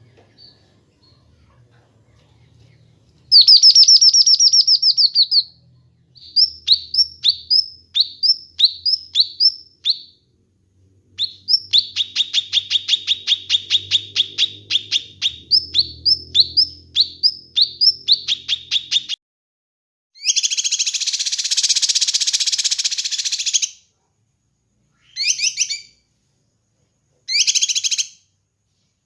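Kinoi bird singing: a fast high trill, then runs of short, quick, down-slurred notes and a long rapid rattle. These are followed by a harsh buzzy call lasting about three seconds and two short buzzy bursts near the end.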